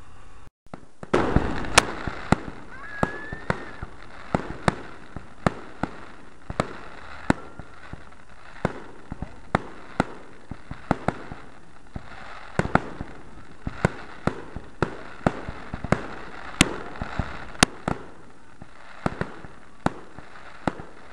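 Fireworks going off: a loud burst about a second in, then a long run of sharp bangs and cracks at uneven spacing, about two a second, over a steady rumble.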